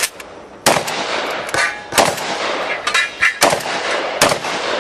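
Shotgun shots from a semi-automatic Remington 1100 fired at steel targets, several sharp blasts about a second apart, each trailing off in a long echo. The pauses fit a dirty gun whose bolt stays open after each shot and has to be closed by hand.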